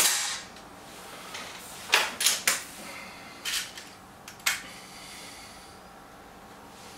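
A single sharp air-rifle shot from a BSA Lightning SE right at the start. It is followed by a few clicks and clunks between about two and four and a half seconds in, as the break-barrel rifle is cocked and loaded for the next shot.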